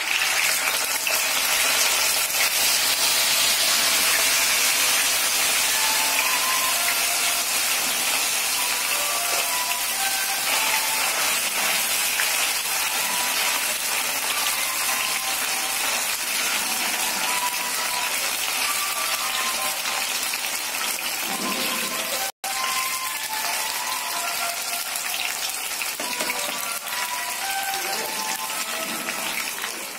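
Elbow macaroni deep-frying in hot oil: a loud, steady sizzle with scattered small pops, stirred with a wire skimmer. The sound cuts out for an instant about two-thirds of the way through.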